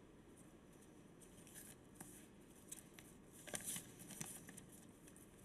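Faint rustling and a few light clicks as a reader handles papers at a lectern microphone, over quiet room tone. The loudest rustle comes a little past halfway.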